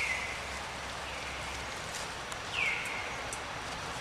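Infant long-tailed macaque crying: three short whistle-like calls, each falling in pitch and lasting about half a second, the second one faint.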